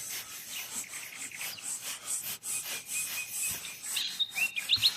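Forest ambience of crickets chirping in a steady pulsing rhythm, with a few short rising bird chirps near the end.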